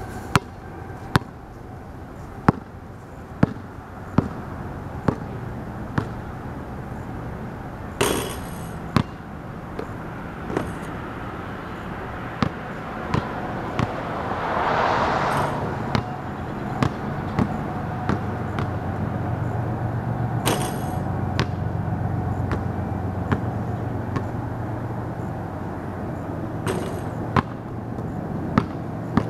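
A basketball bouncing on a concrete driveway: a dribble of sharp single bounces, about one a second at first and then irregular, with a few heavier bangs among them. A steady low hum runs underneath.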